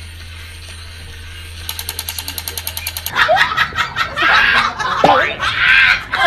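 A battery-powered crawling toy soldier hums, then fires a rapid rattling burst of about ten clicks a second. After a sudden change, a dog vocalizes in gliding cries mixed with laughter.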